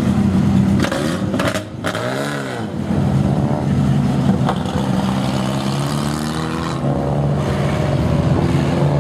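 A pack of short-track stock cars passing in formation, their engines running together steadily at moderate revs. About two seconds in, one engine's pitch rises and falls. A few brief crackles come about a second in.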